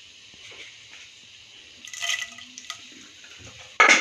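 Hot oil with mustard seeds sizzling faintly in a non-stick kadai, with a few small pops. Near the end a sudden louder sizzle as urad dal goes into the oil.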